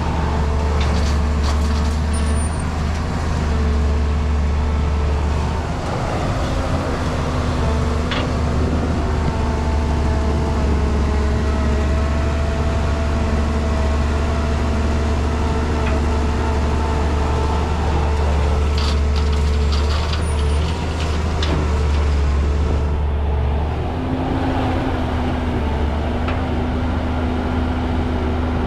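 Caterpillar E200B hydraulic excavator working: its diesel engine runs steadily with a low hum, and the hydraulics whine at several pitches that shift as it digs and swings. A few short knocks come through, about a second in, around eight seconds in and around twenty seconds in.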